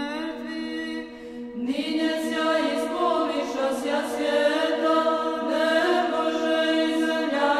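Choir singing Byzantine chant unaccompanied: a low held drone note with voices moving above it, the sound growing fuller about a second and a half in.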